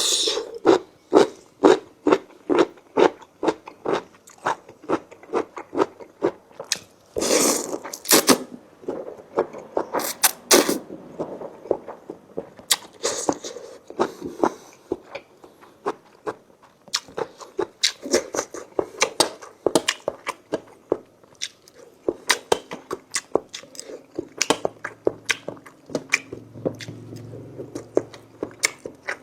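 Close-miked chewing of a mouthful of food, with rhythmic wet chomps about two to three a second and a few louder, longer crunching noises in between.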